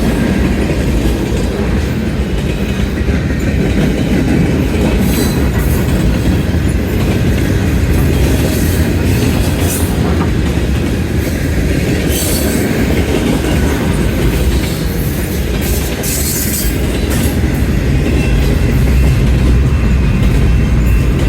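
Train passing close by: the steady rumble of its cars rolling over the rails with clickety-clack, and brief high wheel squeals several times along the way.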